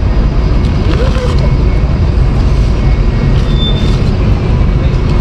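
Steady city traffic noise with a heavy low rumble.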